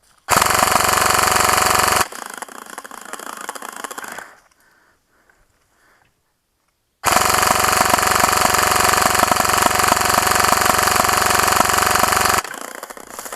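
G&P M249 MKII airsoft electric machine gun firing full-auto, its gearbox cycling rapidly: a burst of about two seconds, then after a silent gap, a longer burst of about five seconds that stops abruptly.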